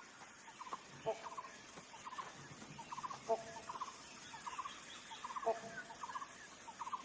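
Faint wild animal calls: short, rapid rattling chirps repeating every half second to a second, with a lower two-tone call about every two seconds.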